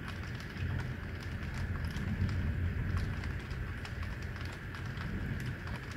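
Heavy rain falling, with scattered sharp ticks of drops striking close by over a steady wash of rain and an uneven low rumble.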